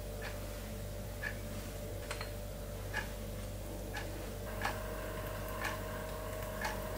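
Clock ticking about once a second, over a steady low hum.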